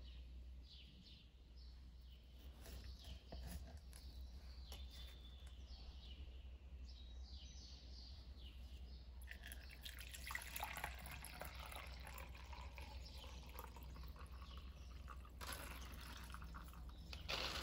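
Liquid poured from a plastic measuring jug into a metal sieve, a soft splashing trickle that starts about halfway through and comes again in short spurts near the end. Birds chirp faintly before the pouring begins.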